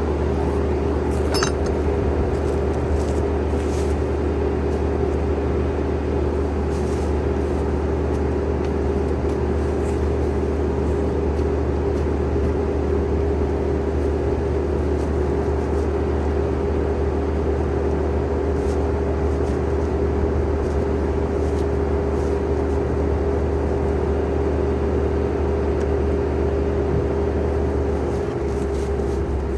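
An engine running steadily at a constant speed, with a brief dip in pitch near the end.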